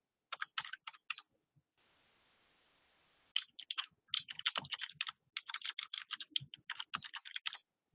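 Typing on a computer keyboard: a few keystrokes, a pause of about two seconds, then a longer quick run of keystrokes that stops shortly before the end.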